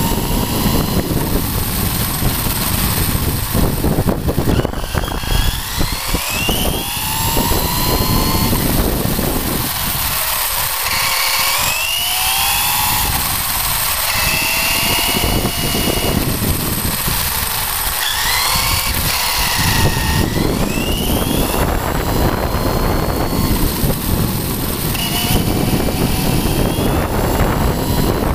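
Traxxas Slash RC truck driving on concrete, heard from a camera on its chassis: its brushless electric motor whines, the pitch rising and falling again and again with the throttle, over a rough rumble of tyres and drivetrain.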